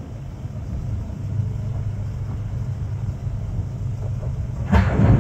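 Heavy equipment engine idling with a steady low rumble, with a short, louder burst of noise near the end.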